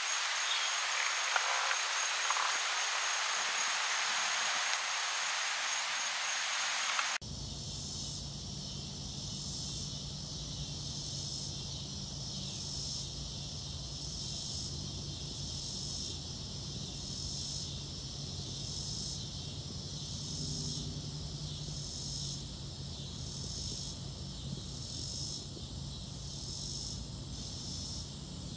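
A steady hiss with a faint high whine, then an abrupt change about seven seconds in to a chorus of insects, crickets and the like, pulsing about once a second over a faint low steady hum.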